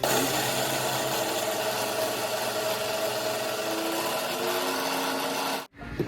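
Electric mixer grinder running steadily with a constant motor whine, grinding broken Oreo cookies into powder. It starts abruptly and cuts off suddenly near the end.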